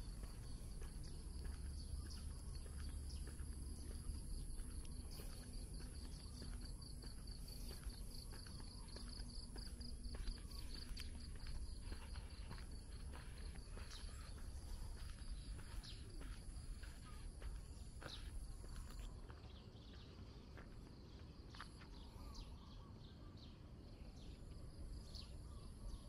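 Insects chirring steadily at a high pitch, one of the high tones stopping about two-thirds of the way through, with soft footsteps of someone walking on a concrete path.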